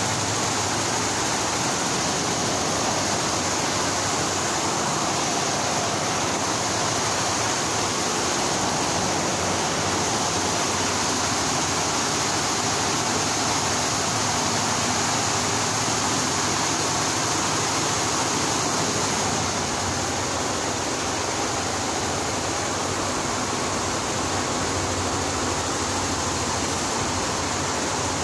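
Steady rushing machine noise with a low hum underneath, easing slightly about two-thirds of the way in.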